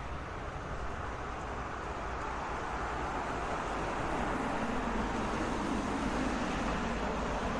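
Road traffic ambience: a continuous wash of passing cars and tyre noise that swells gradually over the first few seconds as vehicles come closer, then holds steady.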